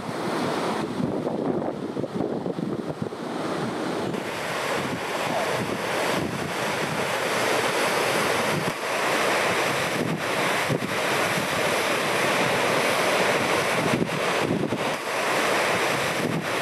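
Ocean surf breaking and rushing, mixed with wind buffeting the microphone; the rush grows louder after the first few seconds.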